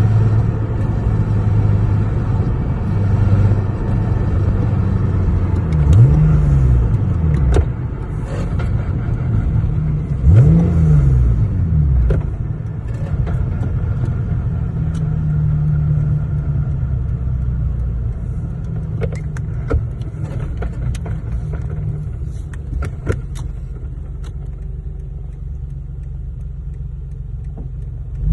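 Lexus GS 300 with a swapped-in ZF manual gearbox driving, with steady engine and road rumble. The revs climb and drop back quickly twice, about six and ten seconds in, and scattered short clicks or knocks come through later on.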